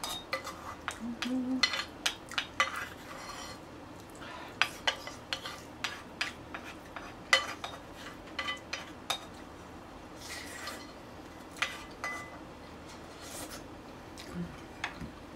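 Cutlery clicking and scraping against dishes during a meal: a busy run of sharp clinks for about nine seconds, then fewer clinks with a couple of short scrapes.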